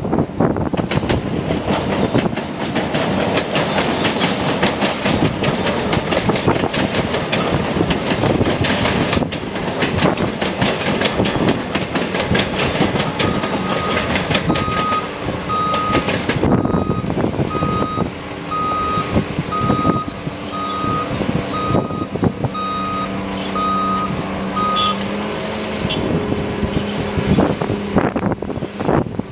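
Comeng electric suburban train running past on the tracks, its wheel and motor noise mixed with heavy wind buffeting on the microphone. About halfway through, a steady electronic beep repeats about once a second for some twelve seconds, with a steady hum of lower tones under it.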